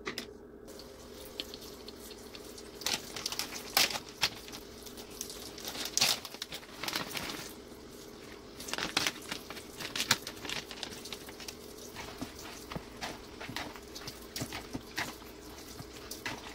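Handling of a plastic shredded-cheese bag and cheese shaking out into a plastic bowl, then a silicone spatula stirring the mixture: irregular crinkles, rustles and clicks over a low steady hum.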